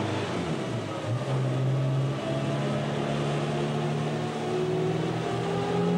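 Car engine running under way. Its note dips about a second in, then settles and climbs slowly toward the end.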